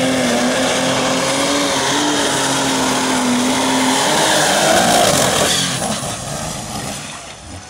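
Pulling tractor's engine running flat out under load while dragging a weight-transfer sled, a loud, steady note. The pitch rises briefly about four to five seconds in, then the sound falls away from about six seconds as the pull ends.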